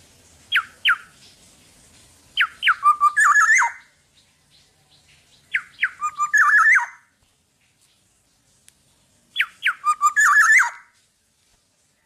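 Black-naped oriole calling: two quick downward-slurred notes, then three phrases a few seconds apart, each a run of falling notes that ends in a harsh, scratchy burst.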